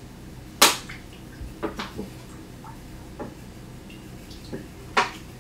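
Kitchen clatter as pots and containers are handled: five or so sharp knocks and clinks, the loudest about half a second in and another near the end, over a low steady hum.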